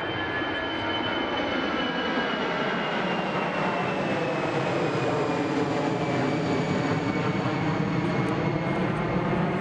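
An aircraft passing, a steady engine drone whose pitch glides slowly down and grows a little louder toward the end.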